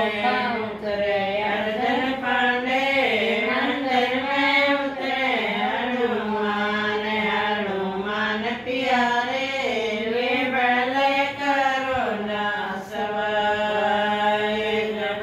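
A woman singing an unaccompanied folk song (geet) in a continuous, chant-like melody that wavers and glides in pitch.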